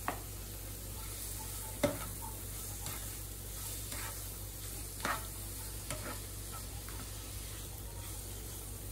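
Chopped tomatoes and spices sizzling in oil in a frying pan while a spatula stirs and scrapes through them, with a steady hiss and about half a dozen sharp taps of the spatula on the pan, the loudest about two seconds in.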